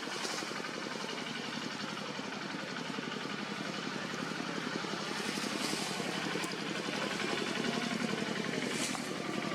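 An engine running steadily with a fast, even pulse, slowly growing louder.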